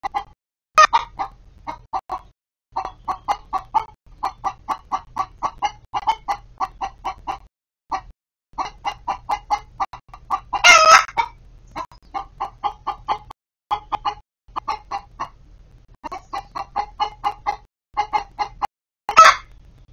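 Hens clucking in quick runs of short notes, about five a second, broken by short pauses. A louder squawk comes about eleven seconds in and another near the end.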